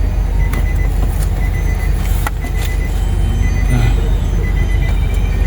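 A steady, low engine rumble, with a few faint clicks over it.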